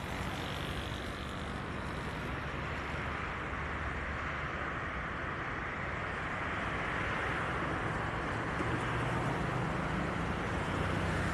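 Road traffic on a multi-lane avenue: a steady rush of tyres and engines that slowly grows louder.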